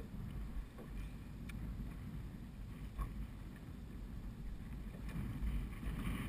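Wind buffeting the microphone and choppy water lapping against a small boat's hull: a steady low rumble with a few faint clicks.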